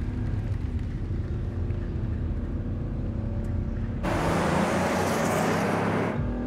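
Car driving fast along a road: a low steady engine rumble, then about four seconds in a loud rush of tyre and wind noise for about two seconds as the car speeds by, before the low rumble returns.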